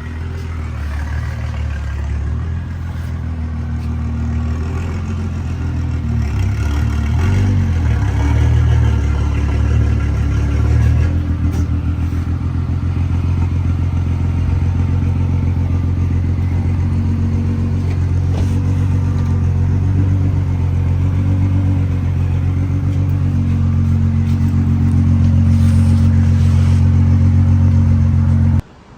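BMW 335's straight-six engine running with an open dump and aftermarket downpipe: a loud, deep, steady exhaust drone. It grows louder and shifts in pitch a few times before holding steady, then cuts off suddenly just before the end.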